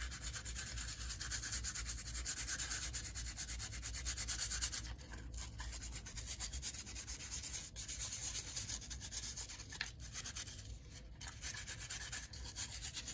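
Scrubbing the soapy shell of a model diesel locomotive: a steady run of quick back-and-forth rubbing strokes, with brief pauses about five seconds in and again near eleven seconds.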